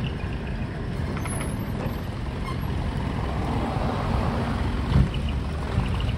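Truck diesel engine running low as the truck rolls slowly out, with a single loud thump about five seconds in.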